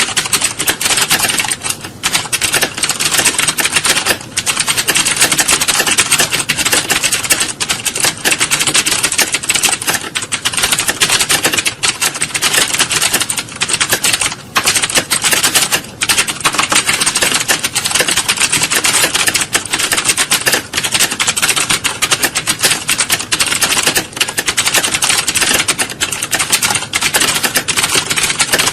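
Many computer keyboards being typed on at once, a dense, continuous clatter of keystrokes with only brief lulls, as in an exam hall during a typing test.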